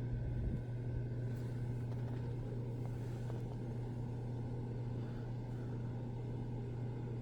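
Steady low hum over a constant background rush, with no changes or distinct events.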